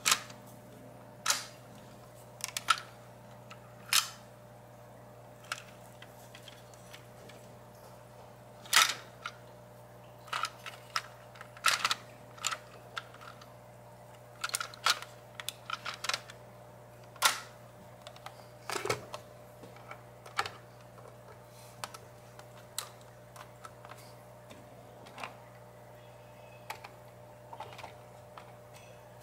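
Plastic LEGO bricks clicking and knocking as a LEGO model truck is handled and turned over in the hands: irregular sharp clicks, some louder than others, thinning out toward the end.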